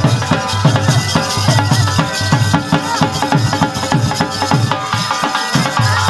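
Bagpipe and dhol drum playing folk music together: a melody over a steady drone from the pipes, with the drum beating a steady rhythm of deep strokes.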